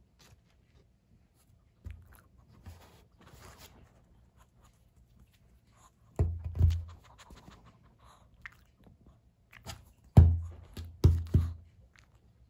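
Dull thumps and knocks on a wooden tabletop as a Pomeranian's front paws shift and land on it: a pair about six seconds in and three louder ones near the end, with a few faint knocks between.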